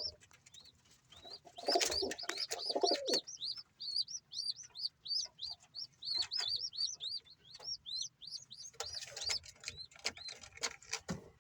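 Baby pigeons (squabs) peeping over and over in a steady string of short, high squeaks, about three or four a second, the begging calls of young birds in the nest. Lower pigeon cooing comes in at times, loudest about two seconds in and again near the end.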